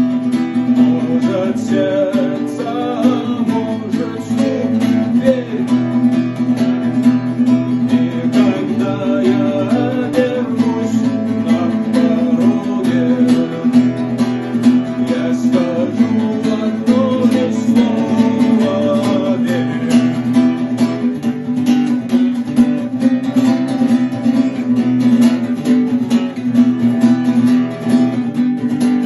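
Acoustic guitar played instrumentally with a steady low drone, melody notes and quick percussive taps on the guitar body in an even rhythm.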